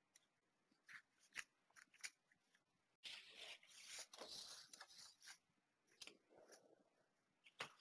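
Near silence: room tone with a few faint scattered clicks and, about three seconds in, a soft rustle lasting a couple of seconds.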